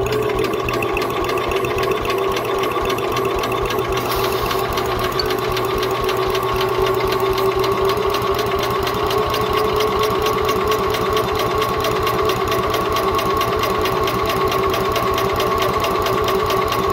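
Electric starter cranking a small engine over steadily, a whirring with a fast, even pulse from the compression strokes, without the engine firing. This is a no-start that they suspect is down to no spark.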